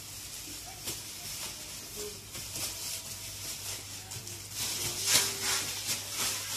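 Plastic bags rustling and crinkling as goods are packed into a cardboard box, loudest about five seconds in, over a faint steady low hum.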